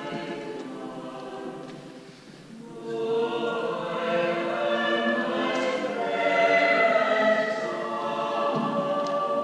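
Choir singing in a stone church, dipping into a brief pause between phrases about two seconds in, then entering again louder.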